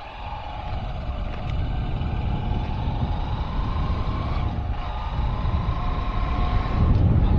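Engine of a moving road vehicle running, its note climbing slowly and dipping once about four and a half seconds in, over a low road and wind rumble that grows louder toward the end.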